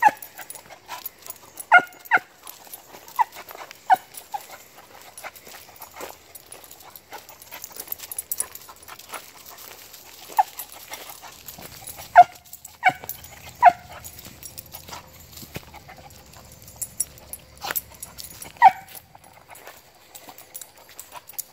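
Beagle giving short, high yips and whines, about a dozen scattered through, the sounds a beagle makes when hunting on a scent.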